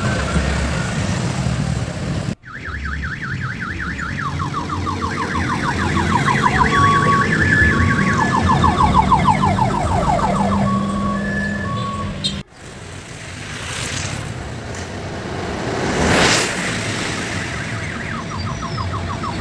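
Electronic siren horn on an odong-odong mini tour bus sounding a fast warbling alarm-like tone with short steady beeps, over the low hum of the bus engine. The sound cuts off sharply twice, and a brief louder rush of noise comes about two-thirds of the way through.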